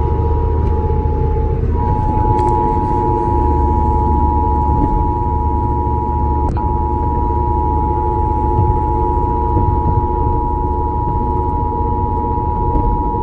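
Emergency Alert System attention signal: the two-tone alert of 853 Hz and 960 Hz sounded together, held steady, coming over the radio during the national EAS test. A steady road rumble from the moving car runs underneath.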